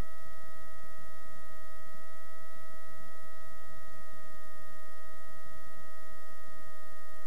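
Steady drone of a Piper Cherokee 235's Lycoming six-cylinder engine and propeller heard inside the cockpit in cruise climb, with a constant high whine of several even tones over it.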